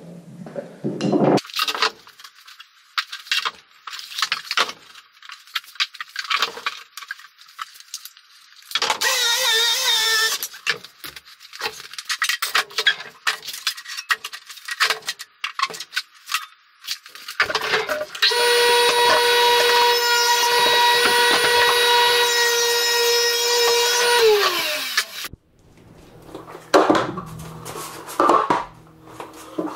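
Clatter and knocks from handling plywood on a table saw. About 18 s in, the table saw's motor runs with a steady whine for some six seconds, then winds down as it is switched off.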